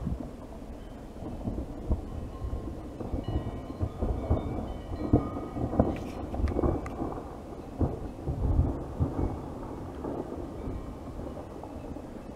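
Rockslide: rocks and boulders tumbling and crashing down a steep forested mountainside. A continuous low rumble is broken by many irregular cracks and thuds, with the heaviest impacts around the middle.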